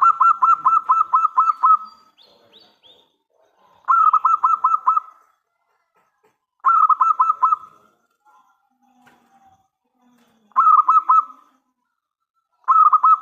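Zebra dove (perkutut) cooing in phrases of rapid staccato notes. Five phrases come a few seconds apart; the first is longest, at about ten notes, and the later ones are shorter.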